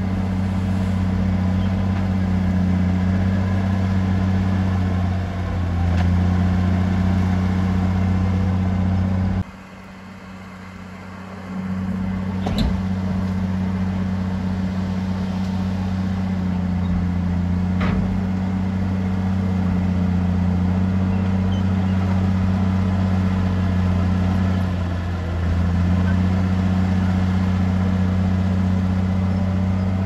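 Heavy diesel engine of a Komatsu D53P bulldozer running steadily at a low pitch, dipping briefly in speed about five seconds in and again near the end. The sound drops away sharply for about two seconds a third of the way through, and two sharp knocks come a few seconds after it returns.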